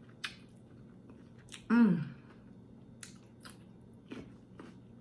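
A person chewing food close to the microphone, with wet mouth clicks and smacks, and a short "mm" of enjoyment that falls in pitch about two seconds in.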